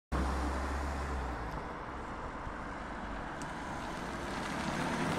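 A car driving over the railway crossing, with tyre and engine noise, and road noise building louder near the end.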